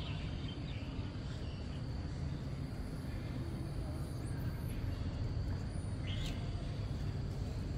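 Outdoor background: a steady low rumble of wind and distant traffic, with a few short bird chirps near the start and about six seconds in.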